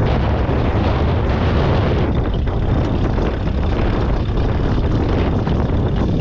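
Ferguson TED20's 2.1-litre four-cylinder petrol/TVO engine running steadily, with wind buffeting the microphone. A faint steady high whine joins about two seconds in.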